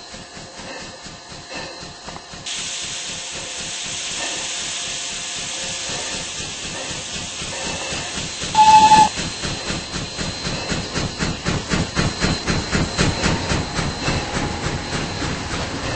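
Steam locomotive letting off a steady hiss of steam, then sounding one short blast on its steam whistle. It then pulls away, its exhaust chuffing in a steady beat of about three to four a second.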